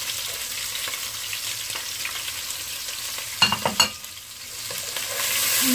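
Sliced onions sizzling as they hit hot oil in a pot. About three and a half seconds in, a metal spoon clinks against the pot a few times, and the sizzle grows louder near the end.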